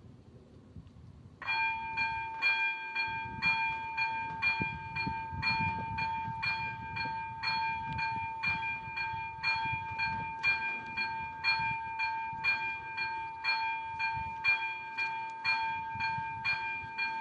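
Level-crossing warning bell switching on about a second and a half in and ringing steadily, about two strikes a second. It is the crossing's signal that a train is approaching.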